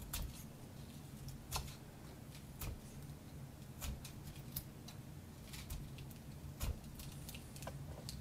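Knife blade scraping and shaving soft pine knife scales by hand: a dozen or so short, scratchy strokes at irregular intervals.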